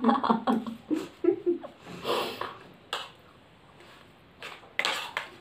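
Stifled laughter and breathy snorts from people eating, with a few murmured words early on and a short click about three seconds in.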